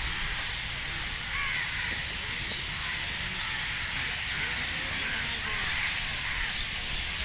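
Many birds chattering and calling at once, a dense steady chorus of short chirps, over a low rumble.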